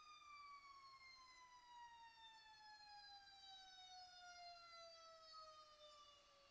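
Faint fire engine siren wailing, its pitch falling slowly and steadily in one long sweep.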